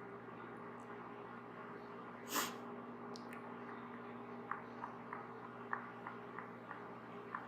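A short, sharp nasal sniffle about two seconds in, over a faint steady hum and hiss. From the middle on, light ticks come about three times a second.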